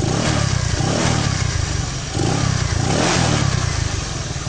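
Scooter engine running through a JVT Silent Pipe aftermarket exhaust, with a steady low exhaust note and the throttle blipped a few times in short revs.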